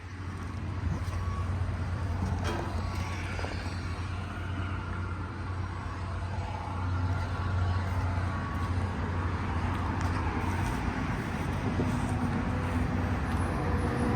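Road traffic going by: a steady low rumble of passing vehicles that swells slowly.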